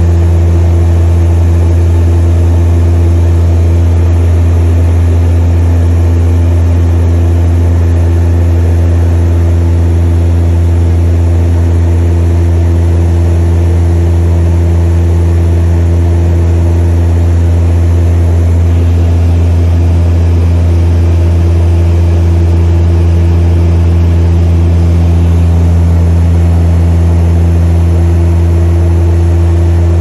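Seaplane's propeller engines droning steadily in cruise, heard from inside the cabin: a loud, unchanging deep hum with a few steady higher tones above it.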